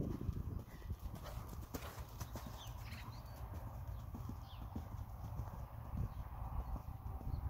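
Faint hoofbeats of a horse moving around a sand arena, a steady run of soft thuds.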